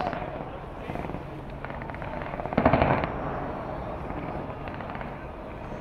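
Aerial fireworks bursting in rapid volleys of bangs and crackles, with the loudest dense cluster about two and a half seconds in.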